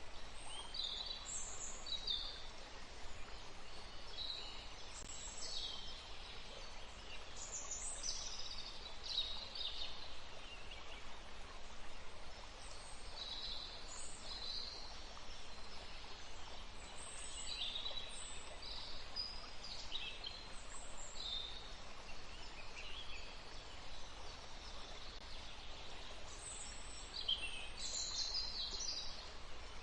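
Forest ambience: small birds chirping and calling in many short, high phrases, busiest in a few clusters, over a steady rush of flowing river water.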